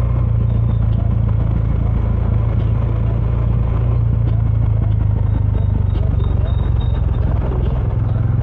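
Bajaj Dominar 400's single-cylinder engine running through its stock dual exhaust while riding, holding a steady, even note.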